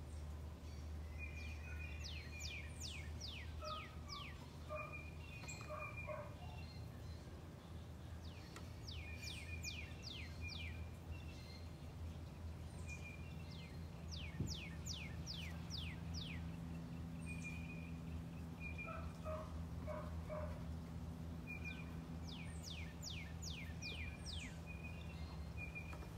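A songbird singing: phrases of about five to eight fast downward-sweeping notes, repeated roughly every six to seven seconds, with short chirps in between. A steady low hum runs underneath, and there is one sharp click about halfway through.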